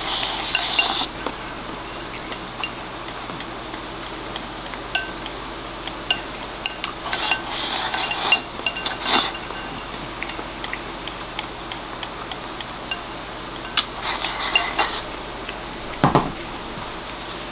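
Wooden chopsticks scraping and clicking against a ceramic rice bowl as oyakodon is shoveled into the mouth, in several short bursts. A dull thud a second before the end as the bowl is set down on a wooden table.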